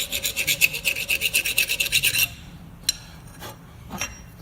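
Hand file rasping in quick, even strokes on the steel square end of a string-trimmer drive shaft, filing it down to fit; the filing stops a little past two seconds in. A few light clicks follow.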